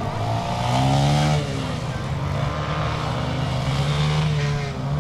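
Off-road motorcycle engine revving up and down as the bike is ridden through a tight cone course. The pitch climbs to a peak about a second in and drops, holds, then dips and climbs again near the end.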